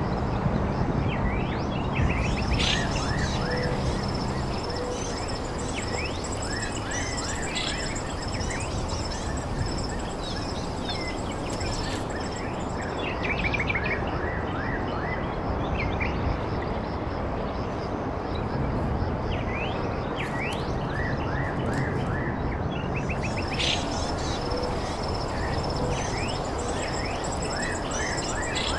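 Birds chirping in short repeated calls over a steady rushing background noise, with a thin steady high-pitched whine that drops away in the middle and comes back near the end.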